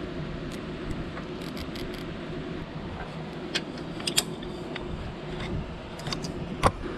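A plastic zip tie being threaded and pulled tight around a cable on a metal roof rack, making scattered small clicks and ticks, with the sharpest click near the end. A steady low hum sits under it.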